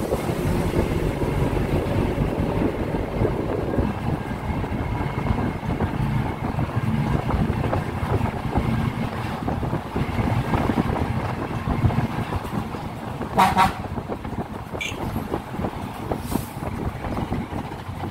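Road vehicle running, heard from on board as it moves: a steady low rumble of engine and road noise. A short horn toot sounds about thirteen seconds in.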